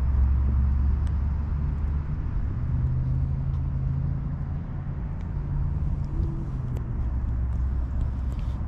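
Steady low rumble of distant road traffic, with a few faint clicks over it.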